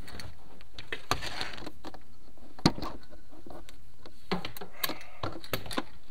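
Scattered clicks and knocks over a steady hiss, the sharpest about two and a half seconds in: a chimney inspection camera and its rod bumping and scraping against the flue tiles as it is moved through the flue.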